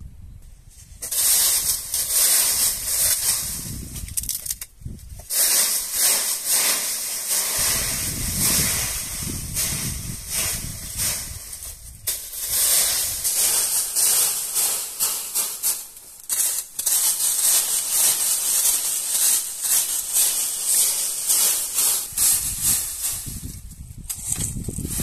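Dry leaves rustling and scraping as a long stick rakes them across a cave floor, in repeated sweeping strokes with a few short pauses.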